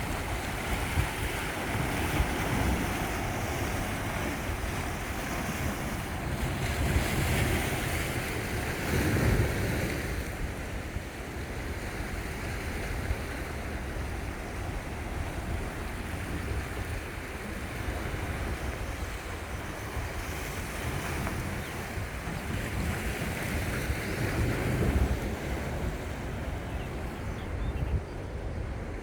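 Sea waves washing onto the shore in a continuous wash that swells louder twice, with wind rumbling on the microphone.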